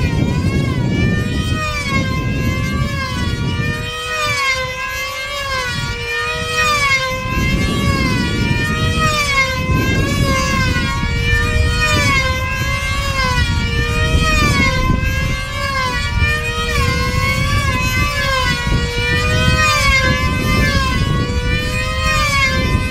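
High-revving two-stroke glow engine of a control line combat model plane flying circles on its lines, a steady high whine whose pitch swoops up and down about once every second and a half as the plane comes round toward and away from the listener.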